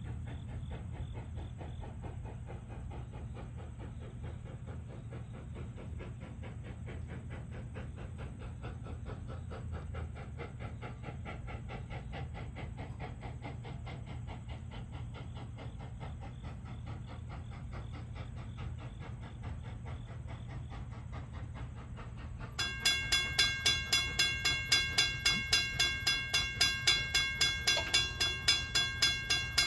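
A steam locomotive working in the distance gives a low steady rumble. About three-quarters of the way through, a railroad grade-crossing bell starts ringing loudly, about two strokes a second: the crossing signals activating for the approaching train.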